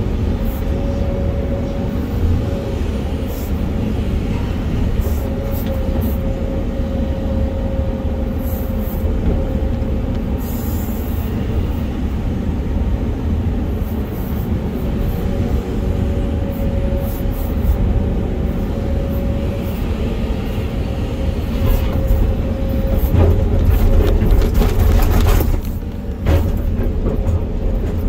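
Volvo EC480EL excavator's diesel engine and hydraulics running steadily through a dump, swing and dig cycle, heard from inside the cab, with a steady whine over the engine drone. The engine grows louder for a few seconds near the end as the bucket digs into the bench.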